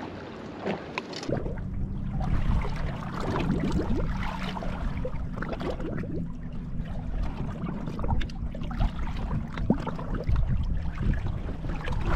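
Water lapping and splashing against the hull of a bass boat on choppy open water, with a low rumble of wind on the microphone that gets louder about a second in.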